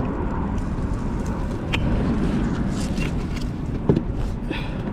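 Steady low rumble of wind and moving creek water buffeting the microphone, with a few scattered clicks and a sharper knock about four seconds in.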